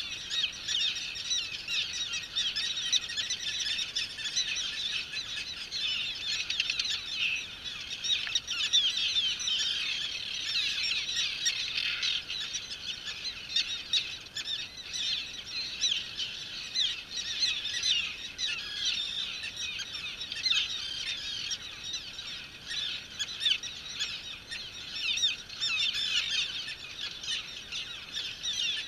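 Common tern colony calling: many terns at once, a continuous dense chorus of short, overlapping calls with no pause.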